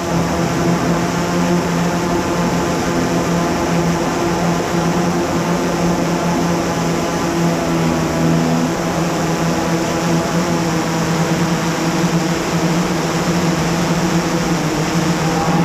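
Multirotor camera drone's propellers humming steadily at a constant pitch over a rushing noise.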